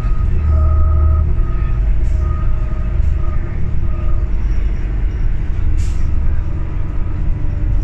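Inside a 2006 New Flyer D40LFR diesel city bus under way: a deep, steady engine and road rumble, with a whine that fades out over the first few seconds. A brief sharp noise comes about six seconds in.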